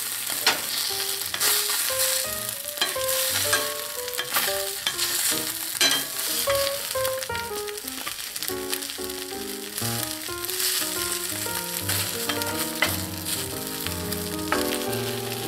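An egg-and-pancake omelet sizzling as it fries in a stainless steel pan, with a few sharp clicks of a plastic spatula against the pan. A simple melody of short notes plays over it as background music.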